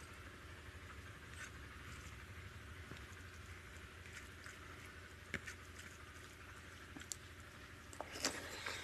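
Fingers mixing boiled rice with dal and lau ghonto on a plate: soft, wet squishing with scattered small clicks, and a louder cluster of clicks about eight seconds in, over a steady low hum.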